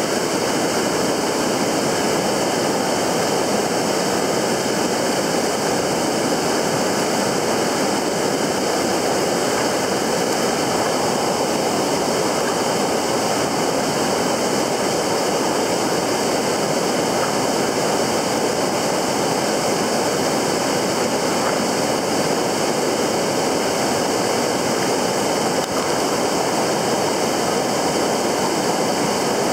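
Steady rush of fast-flowing river water, an even unbroken hiss.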